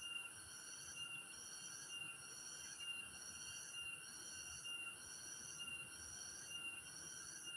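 Insects calling: a continuous very high-pitched trill, with a pulsing higher tone that repeats about once a second.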